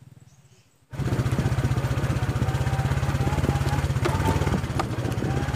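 Motorbike engine running steadily under way, heard close up from the bike itself, with a couple of sharp knocks later on. It cuts in suddenly about a second in, after a near-silent moment.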